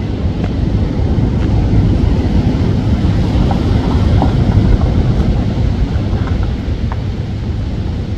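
Strong hurricane wind buffeting the microphone, a loud steady rumble.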